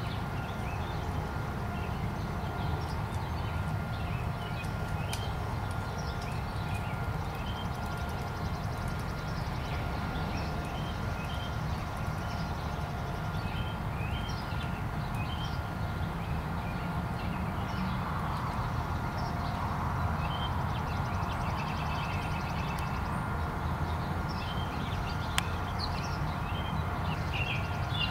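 A yellow-bellied sapsucker tapping lightly and irregularly at tree bark while it works its sap wells. Under it runs a steady low outdoor rumble, with many short, high bird chirps scattered throughout.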